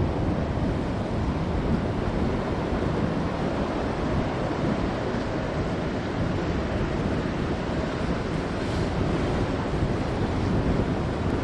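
Steady rush of ocean surf and swells with wind buffeting the microphone, an even, unbroken noise with no distinct engine or other events standing out.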